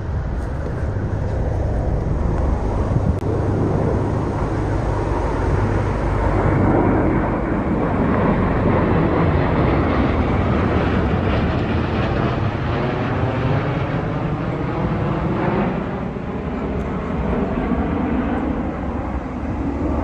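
Aircraft passing overhead: a heavy, steady engine rumble with slowly sweeping tones, loudest about seven seconds in, easing briefly around sixteen seconds, then building again.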